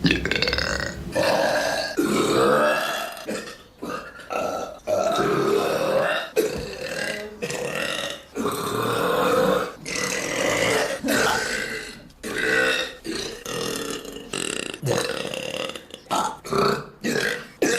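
A young woman burping over and over: more than a dozen burps in quick succession, some short and some drawn out over a second or more.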